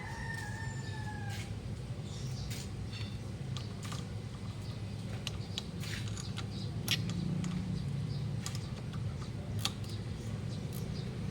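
Scattered light clicks and clinks of wrenches working the 12 mm bolts on a scooter's front anti-dive bracket, over a steady low hum. A brief falling squeak sounds right at the start.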